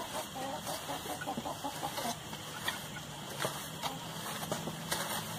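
A chicken clucking several times in the background, mostly in the first second or so, over short scrapes and taps of a template being drawn over a mound of packed earth.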